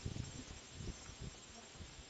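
Steady outdoor background hiss with scattered soft rustling and low knocks, and a couple of faint short squeaks about three-quarters of the way in.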